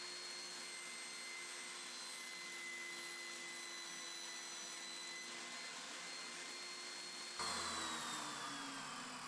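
Benchtop table saw running with a steady whine as a slab of rigid foam board is fed through the blade. About seven and a half seconds in there is a short knock, and the whine then falls in pitch as the motor and blade spin down.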